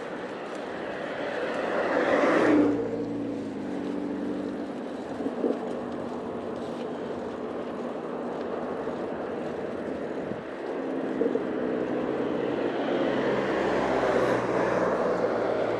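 Motor traffic passing close by. One vehicle grows louder to a peak about two and a half seconds in and drops in pitch as it goes past. Another approaches, growing louder toward the end.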